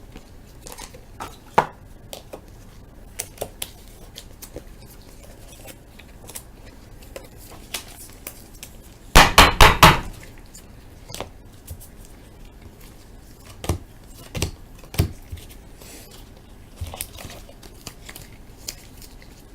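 Light taps and clicks of trading cards and plastic card holders being handled on a table, with a short clatter of four or five loud knocks about nine seconds in.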